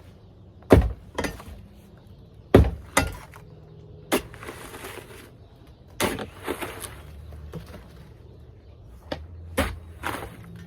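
Repeated heavy blows striking a hot tub as it is smashed apart, about ten hits in uneven pairs and clusters, with cracking and breaking of the shell and frame.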